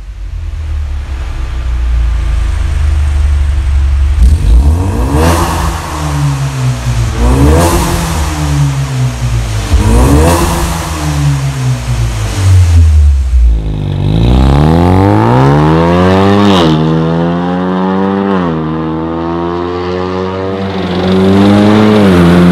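Ford Mustang 2.3 EcoBoost turbocharged four-cylinder, through an Armytrix valve-controlled exhaust, idling and then revved repeatedly in quick blips while parked. First with the exhaust valves closed, then with the valves open from about two-thirds of the way in, where the revs take on a clearer, more buzzing tone. Near the end the engine pulls steadily as the car drives.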